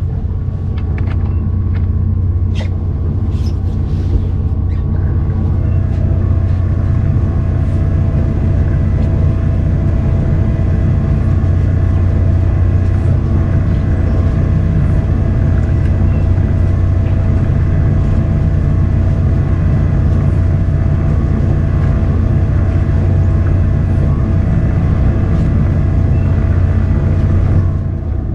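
Fishing boat's engine running steadily with a loud, low drone. A few sharp clicks and knocks come in the first five seconds.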